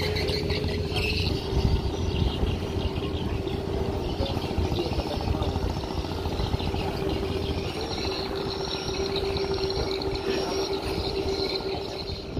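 Speedboat engines running steadily: a constant engine drone with a held hum.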